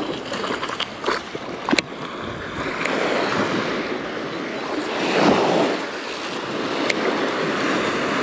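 Small surf waves breaking and washing up the sand, a steady rush that swells loudest about five seconds in, with wind on the microphone. A few sharp clicks in the first two seconds.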